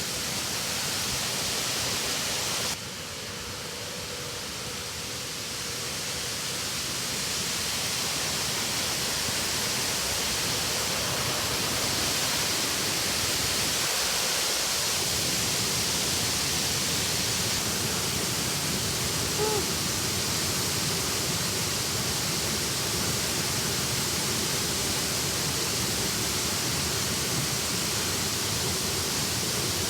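Steady rushing of a river and waterfall. It drops suddenly about three seconds in, then grows louder over the next several seconds and holds steady.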